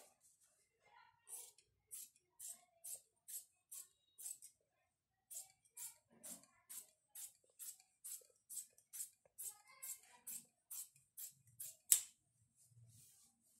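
Tailor's shears cutting through trouser fabric along a chalk line, snip after snip at about two to three a second. There is a short pause about four and a half seconds in, and the sharpest snip comes near the end.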